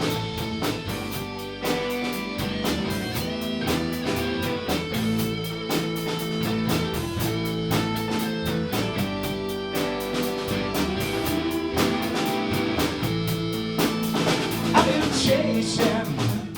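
Live rock band playing an instrumental stretch between sung lines: guitar over a drum kit keeping a steady beat.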